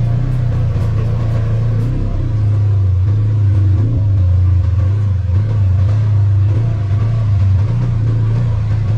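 Polaris RZR 1000 side-by-side's engine running at slow trail speed, a steady low drone whose pitch steps down about two seconds in and rises again near the end.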